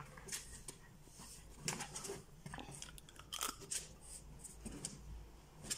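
Fine-toothed comb drawn through a Jack Russell terrier's short coat: faint, irregular scratchy strokes and clicks.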